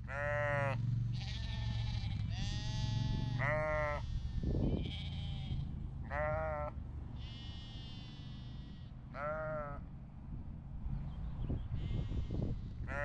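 Sheep and lambs bleating, about eight separate calls, some higher-pitched and some lower, over a steady low rumble.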